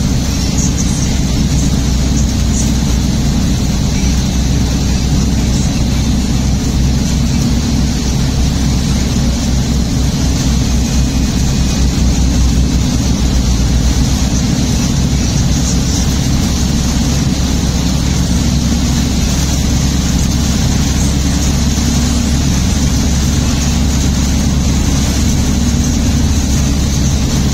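Steady road noise inside a moving vehicle on a highway in heavy rain: a deep low rumble from the engine and tyres, with an even hiss from the wet road and rain.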